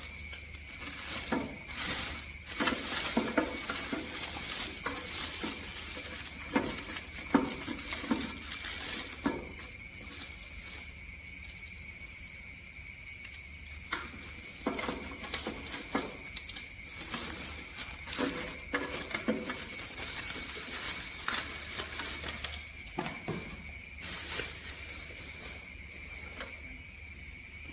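Irregular clicks, taps and knocks of objects being handled, with busier stretches of clatter, over a steady high-pitched whine and a low hum.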